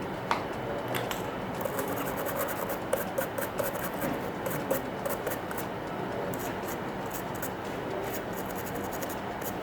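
Quick scratchy scrubbing strokes on a mobile phone circuit board, cleaning it around a freshly soldered network wire connector. The strokes start about a second and a half in and come in rapid runs.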